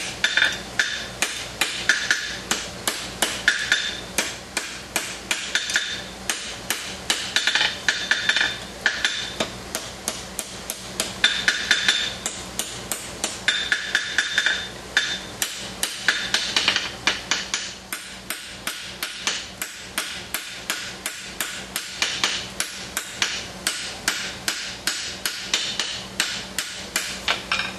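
Blacksmith's hammer forging a red-hot steel tong jaw on an anvil: a long, steady run of blows, about three a second. Several groups of blows ring out with a bright metallic ring.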